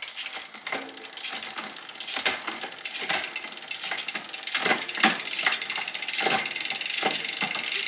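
Bicycle chain running over the rear cassette as the cranks turn, with a sharp click each time the SRAM GX Eagle AXS wireless derailleur shifts the chain up one cog at a time toward the largest cog. Several clicks, at uneven spacing.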